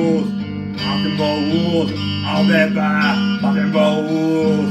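Music: a man sings into a microphone over a steady strummed electric-guitar accompaniment.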